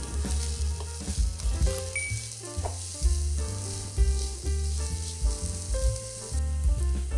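Diced red bell pepper and red onion sizzling in oil in a frying pan and stirred with a spatula; the sizzle stops about six and a half seconds in. Background music plays throughout.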